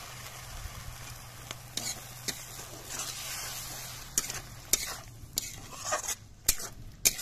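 Fried katla fish and red masala gravy sizzling in a metal kadai while a metal spatula stirs, its blade scraping and clicking against the pan several times, more often in the second half.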